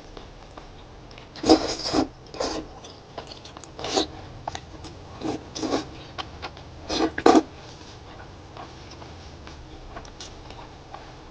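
A person eating close to the microphone: short, irregular chewing and crunching noises, some in quick pairs, then a quieter stretch near the end.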